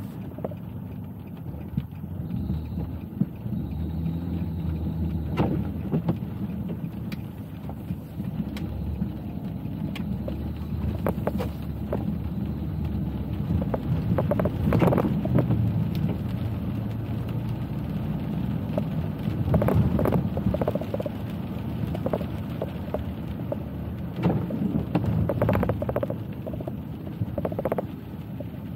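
A car driving on city streets in the rain: steady low road and tyre rumble that swells and eases with speed, with scattered short knocks and clicks every few seconds.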